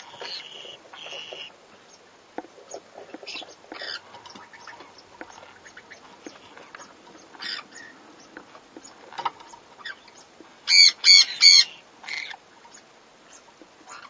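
Pineapple conures (a green-cheeked conure colour form) calling while mating: faint, scattered chirps and squeaks, then a rapid run of about four loud, harsh squawks about eleven seconds in.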